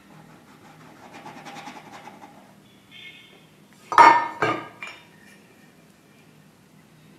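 Stainless steel kitchen utensil clinking against a hard surface: three sharp metallic clinks in quick succession about four seconds in, the first loudest, after a couple of seconds of soft handling sounds.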